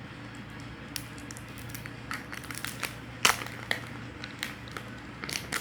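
Plastic packaging crinkling and small sharp clicks from handling a new smartphone, starting about a second in, over a steady low hum.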